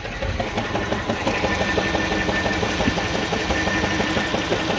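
2007 Mini One's 1.4 petrol engine idling unevenly with a misfire, a slightly lumpy, pulsing run. A faint steady high whine sits over it.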